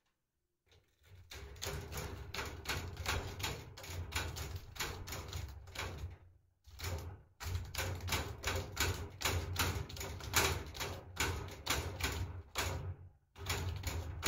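Cat clawing a cardboard scratching board mounted upright on a wire mesh panel: fast rasping strokes, about four a second, with two short breaks.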